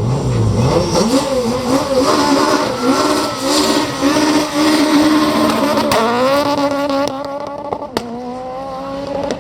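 Renault Clio Maxi S1600 rally car's engine revving up and down as it pulls away slowly, then accelerating with a steadily rising note from about six seconds in. Two sharp cracks stand out, at about six and eight seconds.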